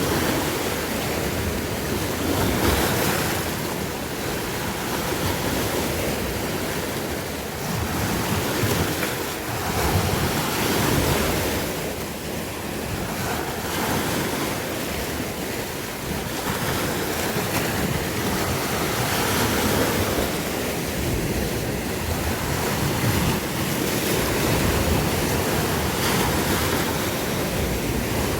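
Sea waves breaking and washing on the shore in a continuous surf, swelling and easing every few seconds, with some wind buffeting the microphone.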